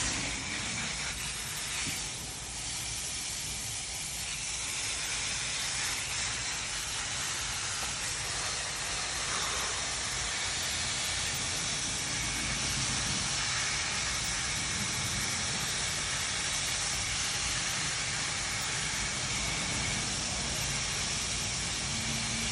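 Garden hose spray nozzle spraying a steady stream of water onto the soil and stems at the base of the plants: an even, continuous hiss.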